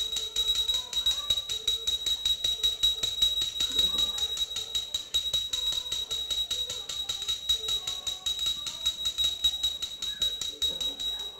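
Devotional bhajan music: small bells or cymbals jingle in a fast, even rhythm with a steady high ring, over a faint sung melody. The music cuts off abruptly at the end.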